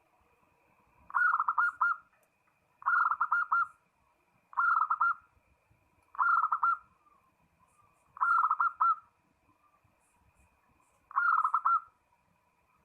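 Zebra dove (perkutut) cooing: six short phrases of quick, bubbling repeated notes, one every two seconds or so, with a longer pause before the last. This is the calling song that draws rival males.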